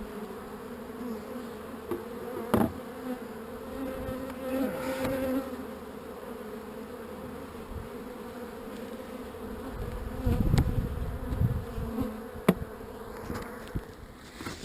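A colony of honeybees buzzing in a steady hum, stirred up by being moved into a new hive. A few sharp knocks, and some low handling noise about ten seconds in.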